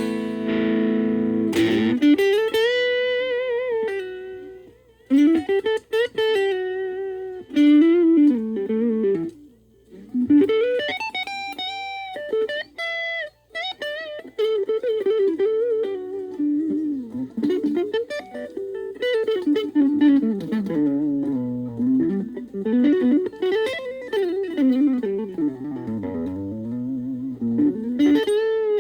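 Gaban Les Paul-type electric guitar played through a VOX Soundbox Mini amp: a chord rings at the start, then single-note lead lines with string bends and vibrato, pausing briefly a few times.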